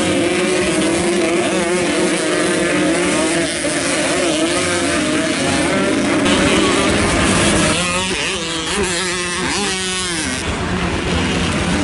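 Several dirt bike engines revving hard, their pitch wavering up and down as the throttles are worked, with sharp rising and falling revs about eight to ten seconds in.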